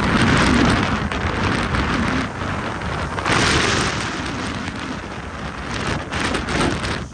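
Blizzard wind gusting and buffeting the phone's microphone, a rumbling noise that swells and eases, with its strongest gust, carrying a hiss of blowing snow, about three seconds in.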